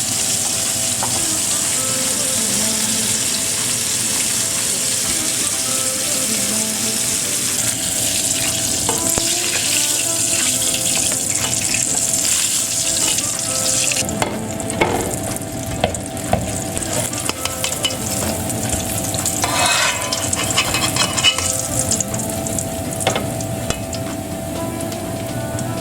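Food frying in hot oil in a pan, with a steady sizzle. About halfway through the sizzle drops away, and utensils clink and scrape against the pan.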